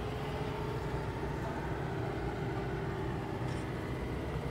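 Steady low hum of an idling engine, holding an even pitch with a few constant tones.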